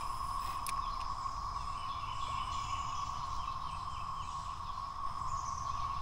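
Chorus of cicadas: a steady, unbroken high drone.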